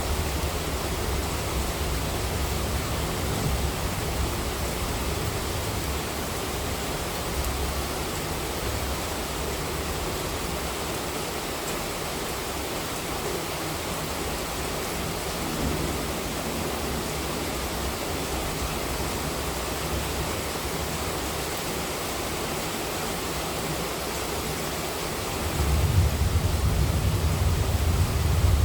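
Heavy monsoon rain falling steadily as a dense, even hiss. A stronger low rumble swells in near the end.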